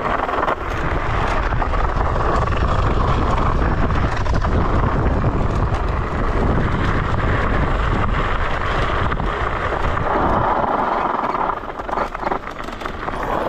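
Steady rush of wind on the microphone and tyre rumble while riding an electric scooter, easing briefly near the end.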